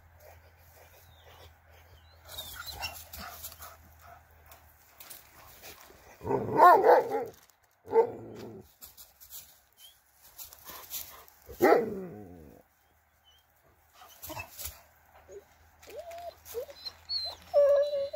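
A dog barking three times, about six, eight and twelve seconds in, the first bark drawn out and wavering in pitch, then whining near the end.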